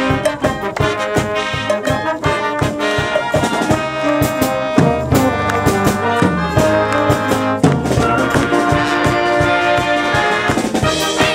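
A school wind band playing live: trumpets, saxophones and a sousaphone over a steady drum beat, with a low held bass note in the middle.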